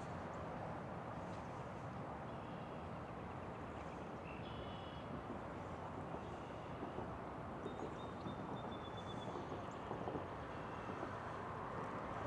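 Faint, steady outdoor background noise with a few short, faint high chirps scattered through it.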